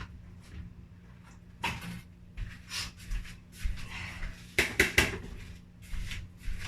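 Dishes knocking and clinking as they are handled in a sink: a scatter of separate clatters, with the loudest few close together about four and a half to five seconds in.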